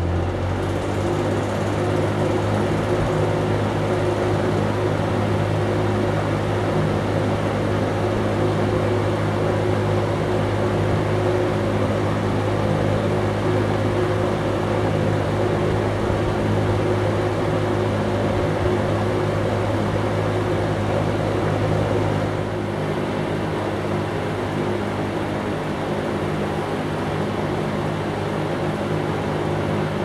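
Berns Air King 20-inch reversible box fan running: a steady motor hum under the rush of air from the spinning blades. The motor runs smoothly with no added oil. It rises to full level over the first second or two and gets slightly quieter about two-thirds of the way through.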